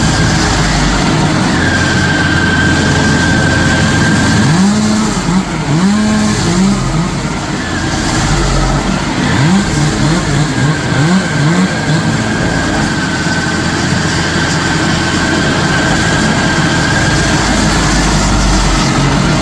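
Stump grinder running hard, its engine and cutting wheel making a loud, continuous noise with a steady high whine. For a few seconds in the middle the engine note wavers up and down as the load changes.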